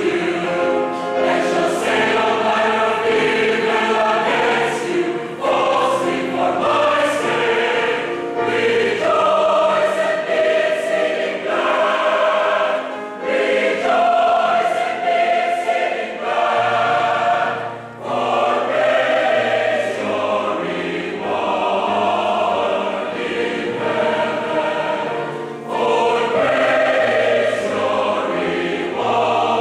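Large mixed choir of men and women singing a sacred choral arrangement in sustained, changing chords, with brief breaks in the sound about 13 and 18 seconds in.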